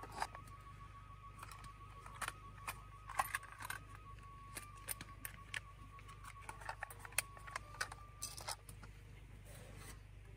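Scattered light clicks and clinks, a dozen or so spread irregularly, over a faint held high tone that shifts slightly in pitch.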